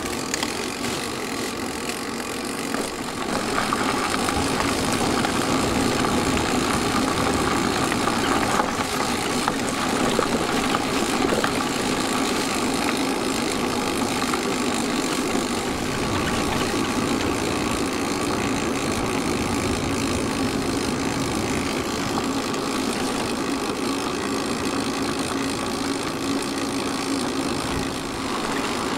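Steady riding noise from an e-bike on the move: tyres rolling on the road and wind rushing over the camera microphone, getting a little louder about three and a half seconds in.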